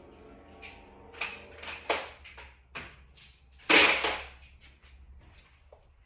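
A series of irregular sharp knocks and clicks, the loudest a longer clatter about four seconds in.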